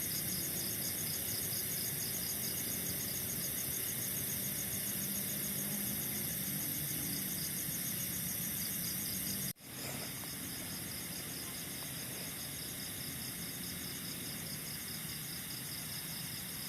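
Night insects, crickets, chirping in rapid, even pulses over a steady high hiss of forest ambience. The sound cuts out for an instant about nine and a half seconds in and resumes a little quieter.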